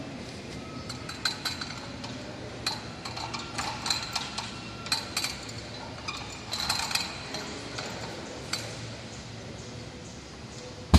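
Irregular metallic clinks and knocks with brief ringing from a gymnastics bar frame as a person swings on the high bar, over low hall noise.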